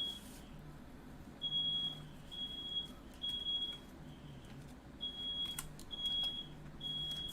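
Smoke alarm sounding in its three-beep pattern: three high half-second beeps, a pause, then three more, set off by smoke from the firework fire.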